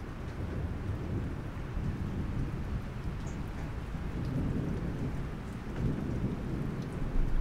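Steady rain with low rolls of thunder, a louder rumble building at the very end.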